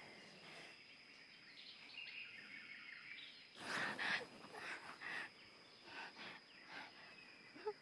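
Quiet forest ambience with faint bird chirps and a thin steady high tone. A few brief rustling noises come about three and a half to five seconds in.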